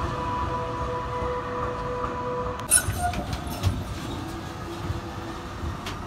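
Melbourne trams running through a street stop: a steady whine for the first couple of seconds, then a few sharp clicks and knocks from the wheels on the track as a tram passes close by, over a low rumble.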